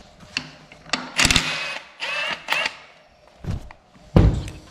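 Cordless drill whirring in short runs as it backs out bolts on top of a T5 manual transmission case, its pitch rising and falling. About four seconds in, a loud clunk as the drill is set down on the bench.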